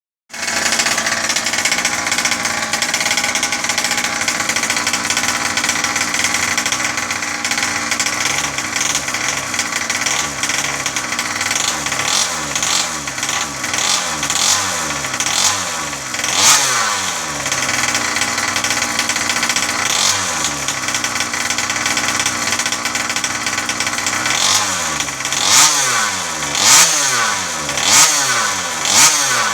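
Small two-stroke petrol engine of a 1/5-scale FG Marder RC car with a twin exhaust, running steadily at first. From about twelve seconds in it is revved in repeated short blips, with several sharp revs near the end.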